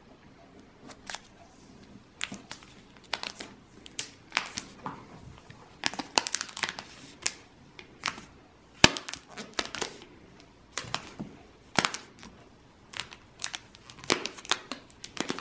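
Clear plastic protective film crinkling and crackling as it is handled and peeled off a new iMac, in irregular sharp crackles that are thickest about halfway through.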